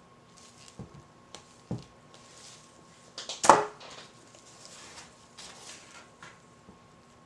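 Containers and utensils handled on a stainless steel work table: a few light knocks, then one sharp clatter about three and a half seconds in, with a short ring after it.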